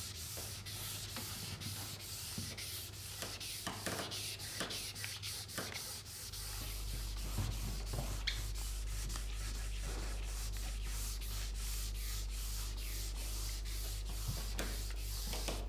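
Liquid ski wax applicator rubbed back and forth over a ski base, a run of quick scratchy strokes, over a low steady hum that gets a little louder about six seconds in.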